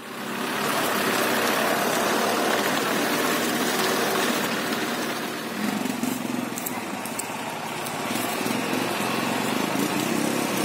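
Engine of an off-road vehicle running steadily, a continuous noisy drone.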